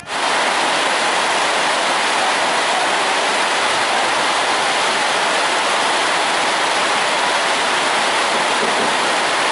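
A loud, steady hiss like heavy rain, switching on abruptly and holding an even level without any change.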